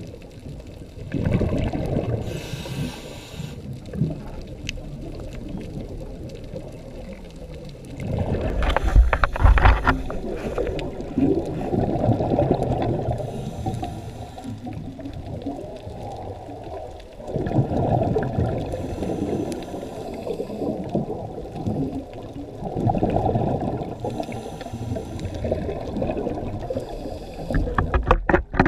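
Muffled underwater sound of a scuba diver breathing through a regulator: a hiss on each inhale and a rush of exhaled bubbles, repeating about every five seconds.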